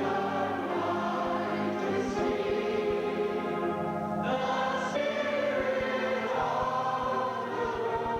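A church congregation singing a worship chorus together in long, held notes, with a new line starting about four seconds in, heard through an old VHS recording.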